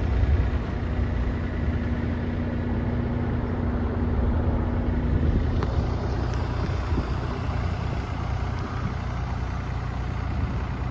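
Yanmar diesel engine of a Komatsu PC30MR-5 mini excavator running steadily, with a faint steady whine that stops about halfway through.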